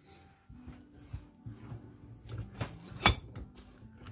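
Metal clinks and rubbing as a heated steel bushing is pressed onto an ATV front driveshaft coupling in a bench vise, with one sharp metallic clank about three seconds in.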